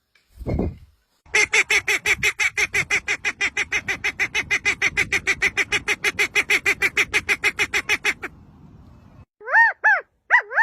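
A bird calling in a fast, even run of harsh honking notes, about seven a second, for some seven seconds before stopping abruptly. A few separate rising-and-falling cries follow near the end.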